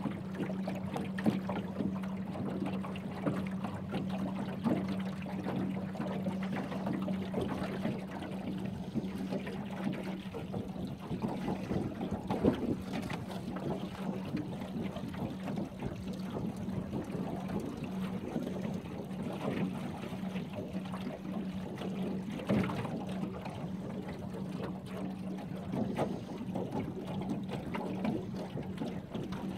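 Small boat under way: a motor hums at one steady pitch throughout, under the splashing and lapping of water against the hull.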